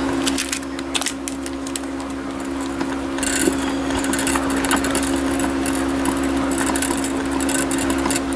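Polymer clay being rolled into a log under the palm on a work surface: soft rubbing and scuffing with a few light clicks, becoming more continuous a few seconds in, over a steady low hum.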